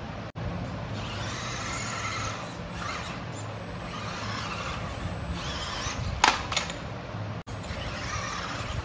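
Electric motor and gearbox whine of RC crawler trucks, rising and falling in surges as they drive the climbing obstacle, with one sharp knock a little past six seconds.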